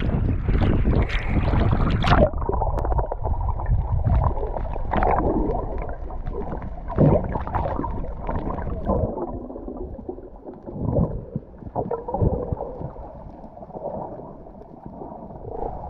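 Seawater sloshing and gurgling around an action camera at the sea surface. About two seconds in it turns to muffled underwater bubbling and rumbling as the camera goes under, with scattered knocks.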